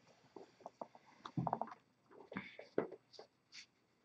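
Magic: The Gathering trading cards being sorted and laid out on a playmat: faint scattered rustles, slides and soft taps, with a couple of brief crisper card sounds near the end. A few quiet murmured voice sounds in between.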